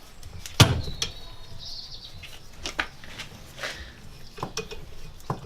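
Metal clicks and knocks from a valve spring compressor being worked on a Mini's cast iron cylinder head: one sharp knock about half a second in, then lighter scattered clicks, with a faint high squeak around a second in.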